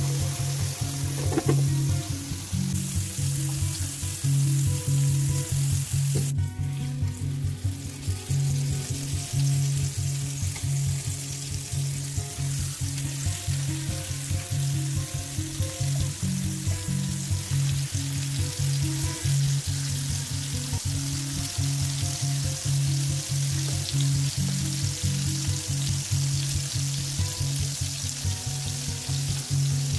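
Pork chops sizzling in hot oil in an enameled cast iron skillet, with the sizzle filling in after a break about six seconds in. Background music with a steady run of low notes plays throughout.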